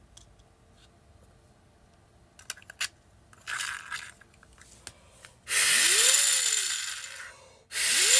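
3D-printed turbine with a helical gear train spun up twice by hand after a test assembly: each time a loud whooshing whir starts suddenly and fades out over about two seconds, with a tone that rises and then falls as the rotor spins down. A few light plastic clicks come from handling the parts before it.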